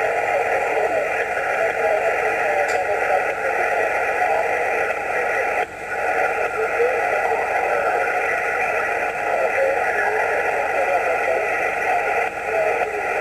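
Yaesu HF transceiver receiving on the 20-metre band, its speaker giving steady, narrow-band static hiss. The hiss drops out briefly a little under six seconds in.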